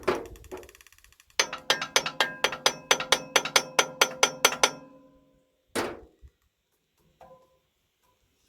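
A hammer striking metal while knocking a tractor's hydraulic cylinder loose. One hard blow is followed by a fast, even run of about five ringing taps a second for some three seconds, then one more blow.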